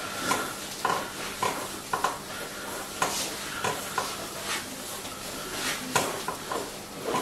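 A massage therapist's hands rubbing and sweeping over oiled skin in short semicircular strokes of the 'washing' massage technique. Each stroke gives a brief crackling swish, coming irregularly about two a second.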